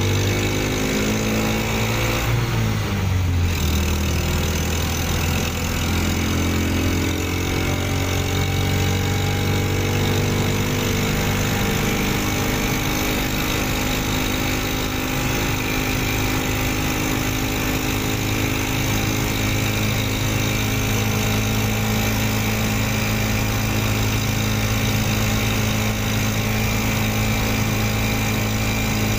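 Motorbike engine fitted in a small Suzuki ST20 van, running steadily while the van drives and heard from inside the cabin. Its note drops over the first few seconds, then holds level.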